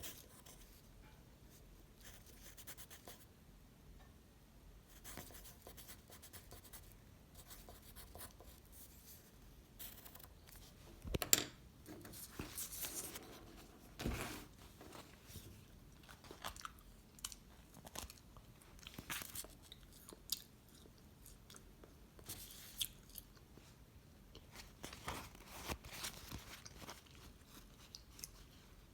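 Close-up chewing and crunching of edible imitation tissue paper, with soft crinkling and tearing. Mostly quiet scattered crackles, with a few louder crunchy bites in the middle.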